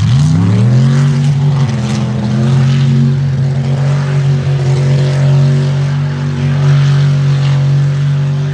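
Mud truck's engine revving up within the first second, then held at high revs, steady and loud, as the truck runs wide open through the mud track.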